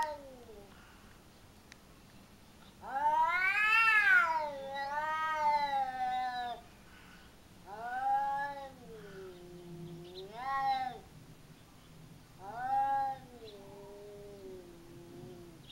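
Cats yowling at each other in a face-off, the threatening calls of a cat quarrel: four long, drawn-out yowls with short pauses between, each rising and then falling in pitch, some trailing off on a held lower note.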